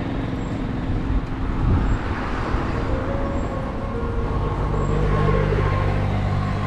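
Road traffic going by, with a motor vehicle's engine passing close from about four seconds in.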